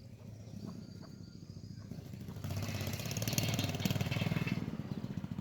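A small engine running with a rapid, even pulse, growing louder with a jump about two and a half seconds in, as if coming closer.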